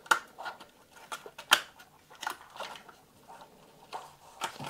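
Irregular sharp plastic clicks and light rattling as the hard plastic body of a small 1/24-scale RC monster truck is gripped and worked loose from its body-mount clips on the chassis. The loudest clicks come near the start and about a second and a half in.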